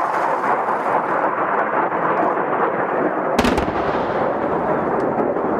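Live-fire exercise explosions and gunfire: a steady rumbling din of distant firing, with one sharp heavy blast about three and a half seconds in that leaves a deep rumble behind it.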